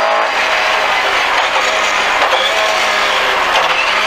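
Lada VFTS rally car's four-cylinder engine running hard under load, heard from inside the cabin over loud tyre and road noise. The engine note changes sharply about a third of a second in.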